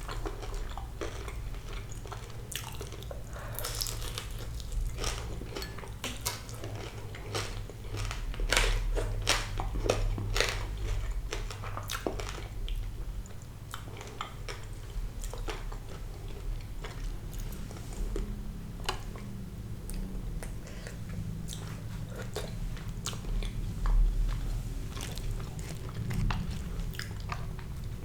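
Close-miked chewing and biting of crispy fried sea bass, with many sharp crunches that are densest in the first half.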